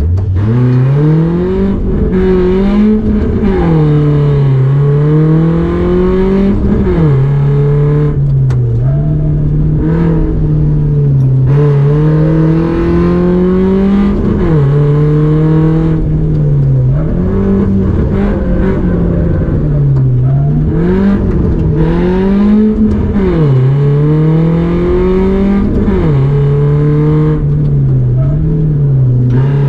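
Rally car engine running hard on a timed run, its revs repeatedly climbing and then dropping sharply every second or two as it goes through gear changes and lifts for corners.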